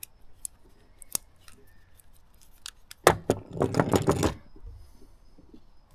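Small metallic clicks of a screwdriver working the screw of a hose clamp on a rubber boat fuel line. About three seconds in comes the loudest part: a burst of clattering and rattling as the screwdriver is set down on a wooden board and the hose fitting is handled.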